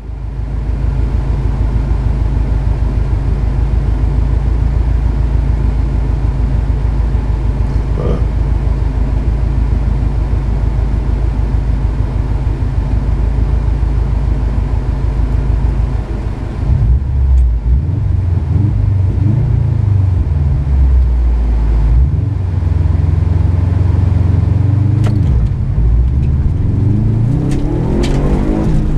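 A vehicle's engine idling with a steady low rumble, heard from inside the cabin; from about halfway the revs rise and fall repeatedly, climbing near the end, with a few sharp knocks.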